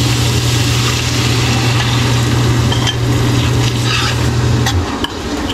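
Palabok sauce sizzling in a hot wok as it is stirred with a metal ladle, with a few sharp ladle scrapes against the wok. A steady low hum underneath cuts out near the end.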